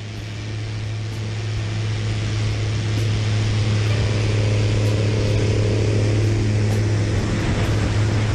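Zenith CH701 STOL light aircraft's engine and propeller at full takeoff power, a steady low drone heard from the wing with rushing wind noise over it. It grows louder over the first few seconds as the plane accelerates down the strip and lifts off, then holds steady.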